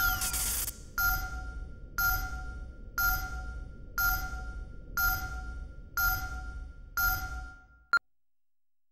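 Countdown leader beeps: a tone sounds once a second, each beep fading away before the next, the first with a short hiss of noise, ending in a brief sharp pip about eight seconds in.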